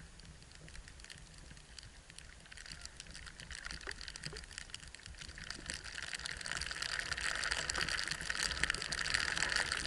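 Hiss and scrape of sliding down a snowy slope, growing louder from about three seconds in, over a steady low rumble of wind on the microphone.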